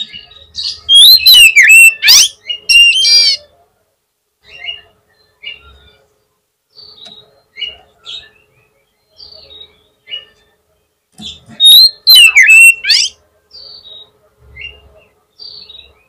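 Oriental magpie-robin singing: two loud bursts of rich, varied song full of quick whistled glides, about a second in and again near eleven seconds, with short scattered chirps in between.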